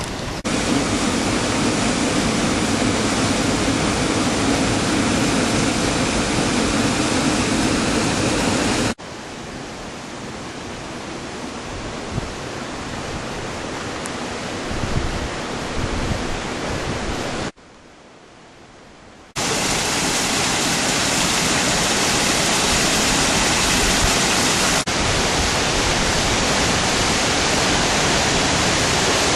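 Waterfall: a steady rush of falling water. The level jumps abruptly several times as the shots cut, with one much quieter stretch of about two seconds a little past the middle.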